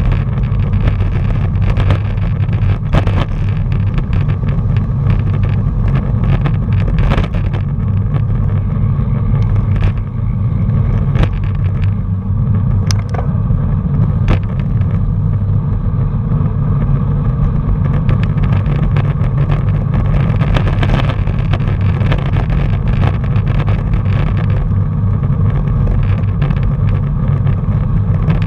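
Wind buffeting a bicycle-mounted action camera's microphone, heard as a loud, steady low rumble along with road vibration from the moving bike. Frequent small knocks and rattles come through as the bike rolls over bumps in the road.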